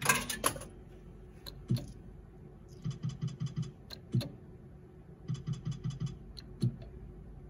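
Bar slot machine clicking as credit is loaded and played: several single sharp clicks, and twice a short run of about half a dozen quick ticks.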